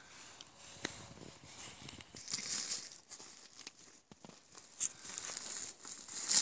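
Irregular crackling and rustling of dry twigs and pine debris as someone walks and brushes through pine trees, with a louder crackle just before the end.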